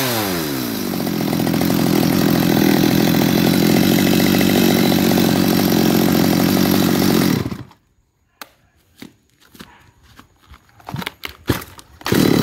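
Stihl two-stroke top-handle chainsaw dropping from a rev to a steady idle, then cut off abruptly about seven and a half seconds in. A few clicks and knocks from handling follow, and the engine fires and runs again just before the end. The saw has just been cleaned and starts readily on the pull, with compression the owner calls very firm.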